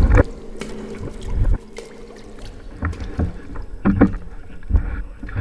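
Canoe on the water, heard close up: an irregular series of paddle splashes and knocks, about one a second, some with a deep thump.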